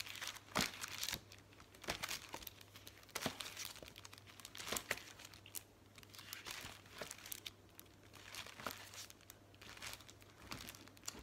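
Clear plastic stencil sleeves crinkling and rustling as a stack of 12x12 stencils is leafed through by hand, in irregular handfuls of rustles.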